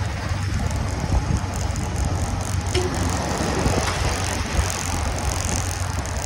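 Steady wind rush and low rumble on the microphone with tyre and road noise from a moving electric scooter at about 25 km/h, with no engine note.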